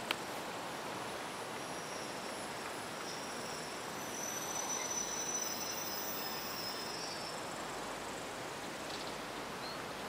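Insects trilling in thin, high, steady tones, strongest in the middle, over an even background hiss.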